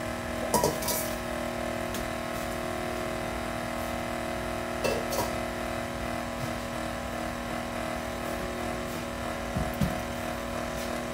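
KitchenAid stand mixer motor running steadily at low speed while mixing cake batter, a hum with several steady tones. A few light clinks of utensils are heard over it, with a low knock near the end.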